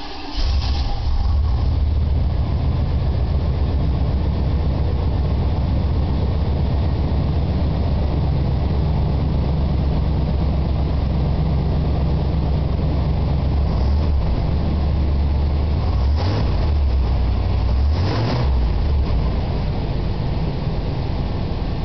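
1991 Chevrolet Caprice 5.0-litre V8 on a cold start: the engine comes up to full running about half a second in, then idles steadily through the stock exhaust. Two short revs come near the end.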